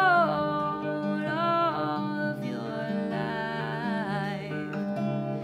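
A woman singing a song with long held notes that slide in pitch, accompanied by her own acoustic guitar.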